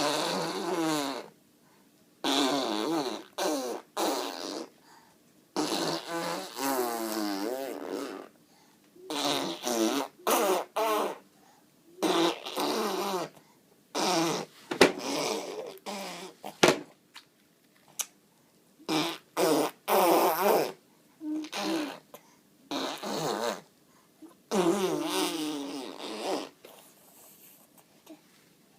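Fart noises made by a person, one after another in a long series of short blasts with brief pauses between them. Their pitch wobbles within each blast, and they stop near the end.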